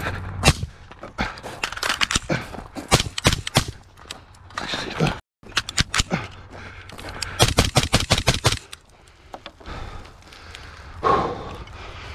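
Semi-automatic gunfire in quick strings of shots, the fastest run of about eight shots in just over a second about seven seconds in.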